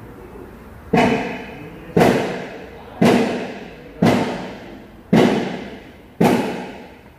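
Six heavy knocks, evenly spaced about one a second and starting about a second in, each ringing on briefly before the next.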